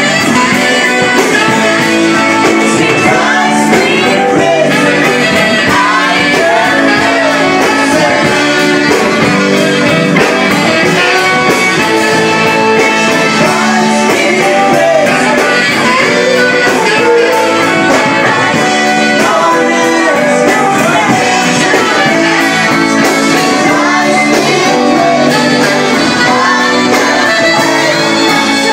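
A live band playing a song with a woman singing lead into a microphone over electric guitar, recorded loud and steady through a mobile phone's microphone.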